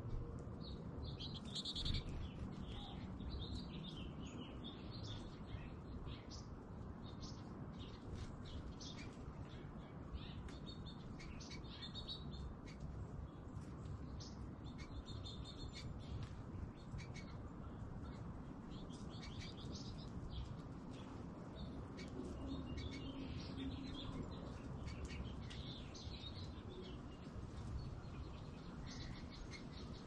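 American goldfinches twittering: many short, high chirps in loose clusters, over a steady low background rumble.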